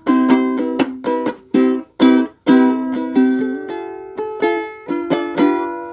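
Ukulele strummed in a steady rhythm, about two to three strums a second. For the first two seconds or so the chords are cut short, muted with the forearm; after that they ring on and fade between strums.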